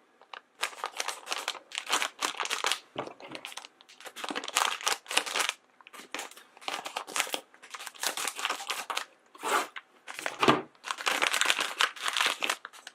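Foil blind bag being torn open and handled, with repeated crinkling and crackling.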